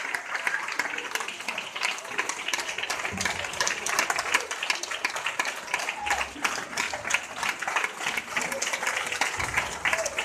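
Audience applauding, with many overlapping hand claps throughout.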